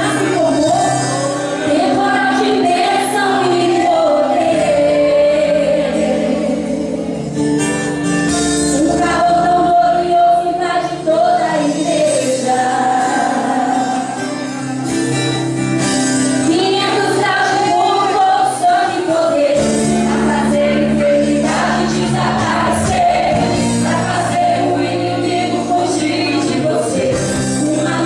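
A woman singing a worship song into a microphone, with instrumental accompaniment underneath.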